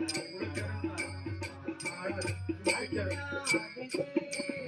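Bhajan music: sharp percussion strikes, about two to three a second, over a held and gliding melody.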